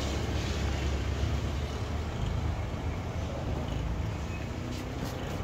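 Steady low rumble of vehicle engines from street traffic.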